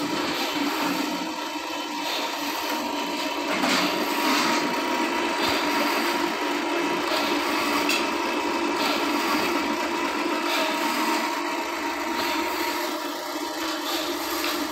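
Automatic cotton wick making machine running, a steady motor hum with a thin constant whine.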